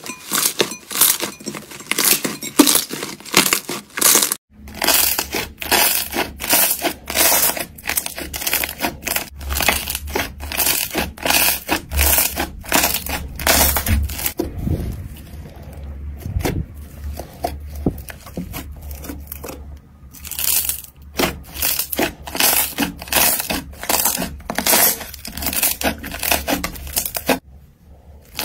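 Hands squeezing and kneading slime, making a dense run of sharp wet clicks and pops as trapped air is pressed out. The sound shifts about four seconds in, when a glossy green slime is pressed into a flat spread of slime.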